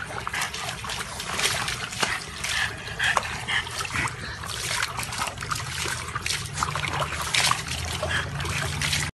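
A dog splashing about in a plastic tub of water: continuous sloshing and trickling, with irregular small splashes throughout.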